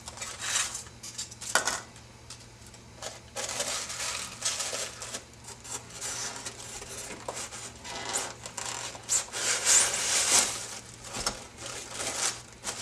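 Packaging being handled while a die-cast scale model is unpacked: uneven rustling and scraping of plastic trays and wrapping, with light clicks and clinks of small parts.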